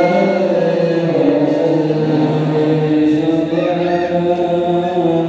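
A group of men chanting Islamic devotional verses in unison, holding long notes, heard through a homemade 1200-watt amplifier and horn loudspeakers.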